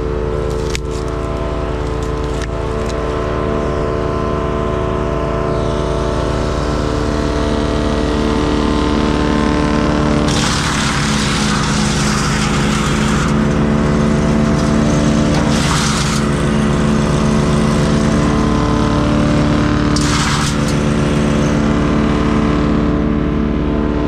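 Towable wood chipper with a twin-cylinder Honda engine running steadily at speed. About ten seconds in, branches are fed in and chipped for a few seconds, a rough crunching over the engine, with two shorter bursts of chipping later.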